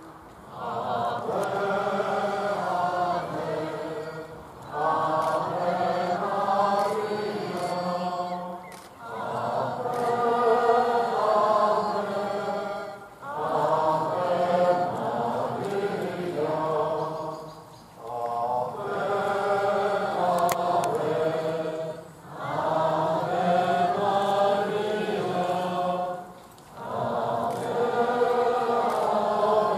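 A large crowd of people walking in procession singing a hymn together in unison, in phrases about four seconds long with a short breath between each.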